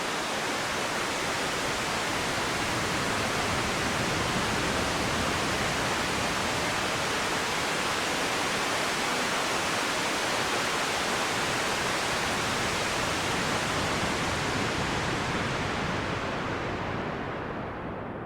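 Synthesized ocean wave made from filtered noise in VCV Rack: a broad hiss that swells, holds, then fades near the end as its high end closes off. Its high-pass filter has been lowered to let more low rumble through.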